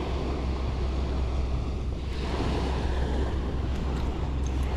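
Ocean surf washing onto the beach, with wind buffeting the microphone in a steady low rumble.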